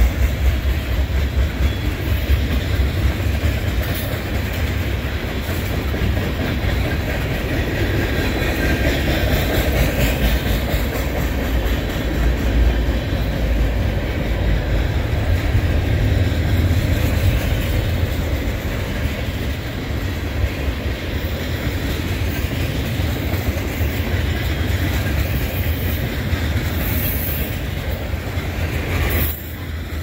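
Freight cars of a long freight train rolling past at track speed: a steady rumble and clatter of steel wheels on the rails.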